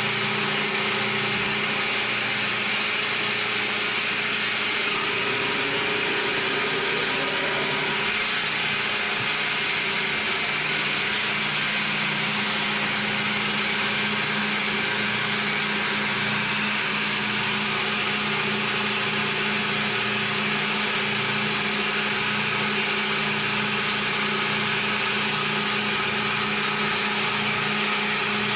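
CNC milling machine running a cut on a workpiece: a steady machine drone with a constant spindle tone over a broad cutting hiss.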